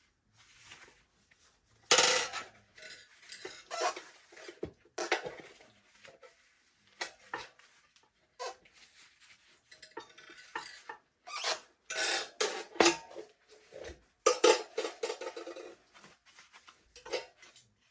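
Metal tire irons clinking and scraping against a motocross wheel rim as the tire is levered over the rim, in irregular clanks and short scrapes with a few sharper knocks.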